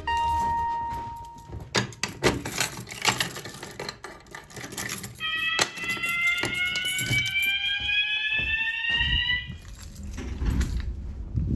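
Clicks and rattling, then a System Sensor mass horn strobe sounds a single slow-whoop tone that rises steadily in pitch for about four seconds and cuts off suddenly, briefly sounded by the fire alarm panel's walk test.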